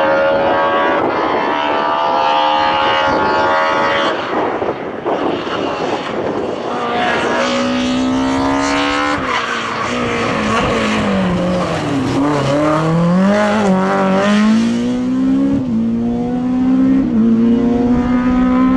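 BMW E30 M3 rally car engine at full throttle, holding high revs and climbing through the gears with short breaks at the shifts. Midway the revs drop and swing up and down as the car brakes and downshifts for a corner, then it pulls away hard again.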